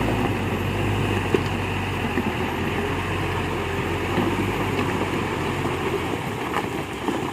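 Diesel truck engine running steadily.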